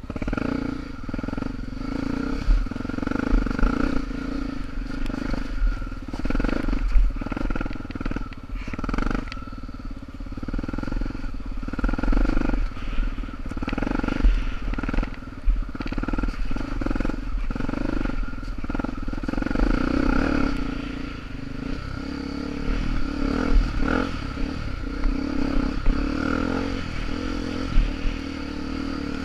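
Honda XR250 Tornado single-cylinder four-stroke dirt bike engine running, its revs rising and falling again and again.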